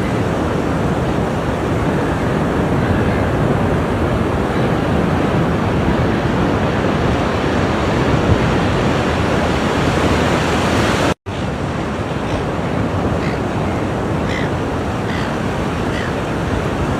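Ocean surf washing onto the shore in a continuous, even rush of noise, with wind on the microphone. The sound drops out for a split second about two-thirds of the way through, an edit cut, and faint short high chirps come through the surf after it.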